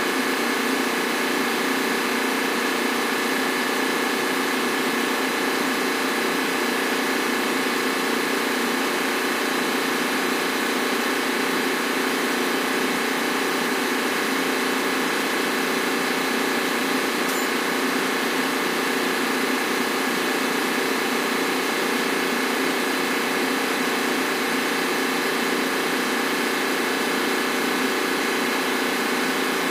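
Steady drone of running machinery in a ship's engine room: an even, unchanging hum with several steady tones held throughout.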